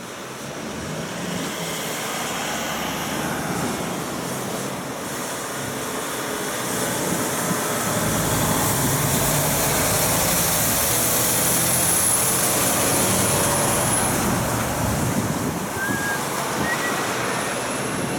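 Diesel engine of a loaded log truck and trailer pulling round a roundabout and driving past, building to its loudest about ten to fourteen seconds in with tyre and road noise. A thin high whistle is heard as it goes by.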